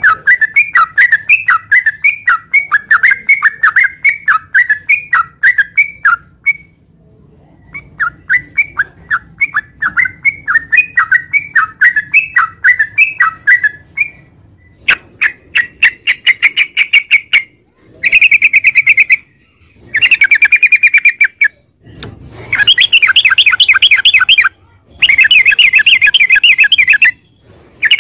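Yellow-vented bulbul (trucukan) singing: two runs of quick bubbly chirps, then from about halfway a series of loud, fast rattling trills in short bursts.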